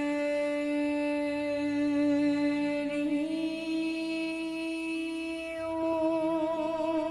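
A woman singing one long drawn-out note of a devotional bhajan. The pitch steps up slightly about three seconds in, and a wavering vibrato comes in near the end.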